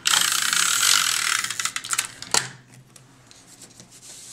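SNAIL tape-runner adhesive dispenser drawn along the back of a strip of paper, a loud dry rasping for about two seconds, followed by one sharp click.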